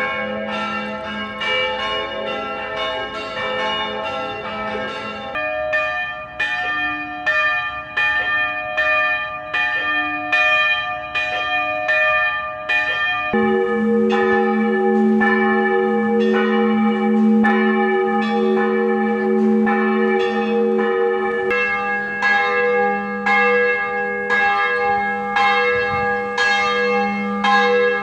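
Church bells ringing, several bells struck in quick overlapping succession so that their tones ring on together. The set of bells heard changes abruptly three times, about 5, 13 and 21 seconds in.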